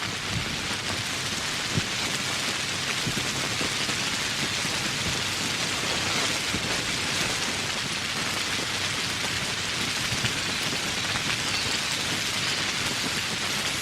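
Steady heavy rain falling on foliage in a tropical forest, an even hiss with scattered individual drops ticking through it.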